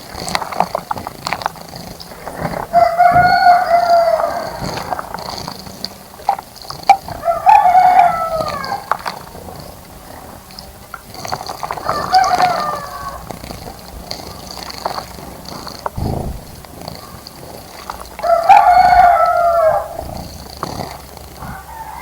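A rooster crowing four times, each crow about a second long, spaced several seconds apart. Short splashes from birds bathing are heard in between.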